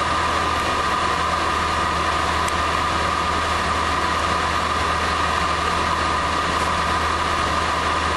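Heavy vehicle engine idling steadily: an even low drone with a constant mid-pitched whine over it.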